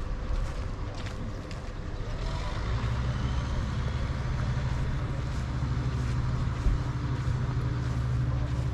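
A vehicle engine running steadily at a low, even speed, its hum strengthening about two seconds in.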